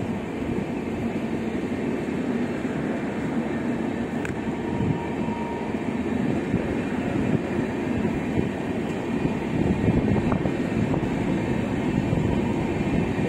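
Express train's passenger coaches rolling past on the track as it pulls out of the station: a steady rumble of wheels on rails that grows a little louder as the train gathers speed.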